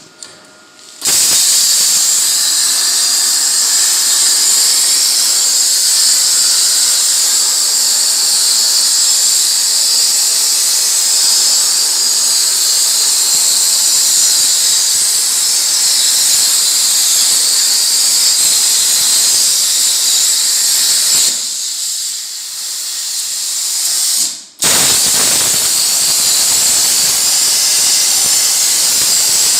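Plasma torch on a CNC plasma cutting table cutting sheet metal: a loud, steady high hiss of the arc and air jet that starts about a second in. Near the end it drops for about three seconds, cuts out for an instant, then starts again as the torch takes up the next cut.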